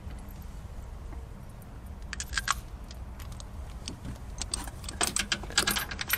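Light metallic clicks and clinks of a new spark plug and its chrome plug socket handled and fitted, starting about two seconds in and coming thicker and louder near the end, over a low steady hum.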